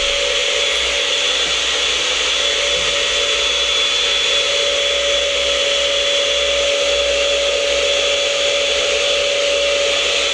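Countertop electric blender running steadily at full speed with an even motor whine, blending a liquid Pisco Sour base of pisco, lime juice, gum syrup and egg white.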